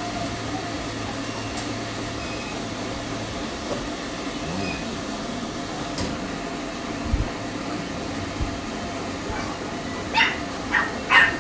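Stand pet dryer blowing steadily while a poodle puppy gives three short, high yips near the end.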